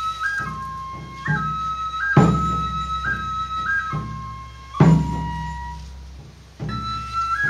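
Shinto shrine ritual music: a Japanese transverse bamboo flute plays a slow melody of long held notes that step up and down, with short flicking grace notes. A deep drum is struck three times, about a second, two seconds and five seconds in.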